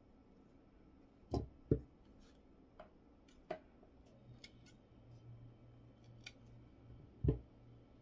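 Electrician's scissors snipping RG6 quad-shield coax cable: a handful of sharp snips and clicks, the loudest two close together about a second and a half in and another near the end.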